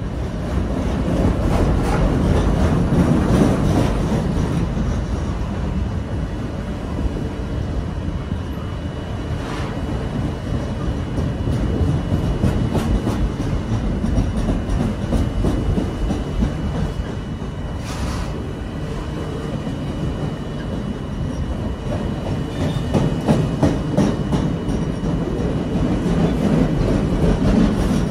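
Empty flatcars of a CSX freight train rolling past close by: a steady rumble with a rapid, uneven clatter of wheels clacking on the rails.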